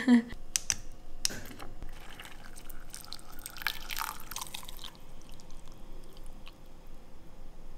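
A few light clicks, then water pouring in a thin stream from a water dispenser's spout into a glass tumbler over a tea bag. The pour is loudest for the first few seconds, then goes quieter as the glass fills.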